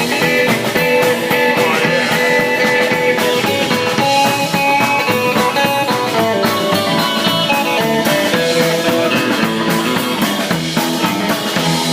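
Live rock band playing an instrumental passage: guitar lead over drums and bass, with no singing.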